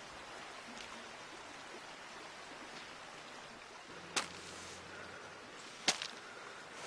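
A steady, soft hiss of outdoor ambience, broken by two sharp, short cracks about four and six seconds in.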